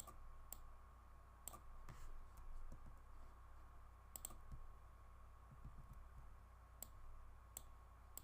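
Scattered single clicks of a computer mouse, about six in all, with two close together about four seconds in, over a faint steady electrical hum.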